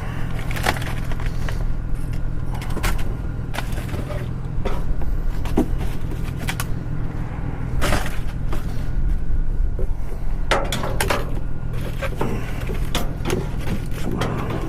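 Plastic snack packs and a cardboard box being handled: scattered clicks, knocks and crinkles over a steady low hum of an idling vehicle.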